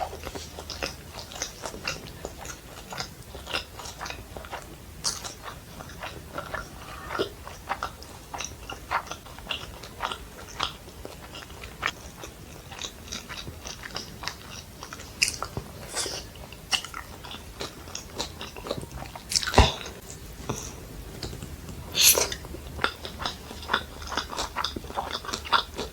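Close-miked chewing and biting of fried rice and Manchurian: a steady run of wet mouth clicks and soft crunches, with two louder sharp clicks about two-thirds of the way through.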